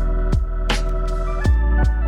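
Electronic background music with heavy bass, sustained synth chords and a steady drum beat.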